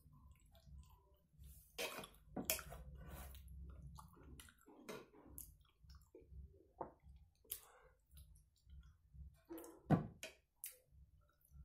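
Close-up wet mouth sounds of a person eating curry and rice by hand: irregular lip smacks, chewing and finger-licking clicks, the loudest smack about ten seconds in.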